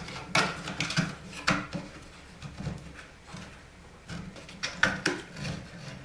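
Old knob-and-tube wires being pulled into a plastic ceiling junction box by hand: irregular scrapes, rubs and light clicks of wire and plastic against each other and the wooden joist.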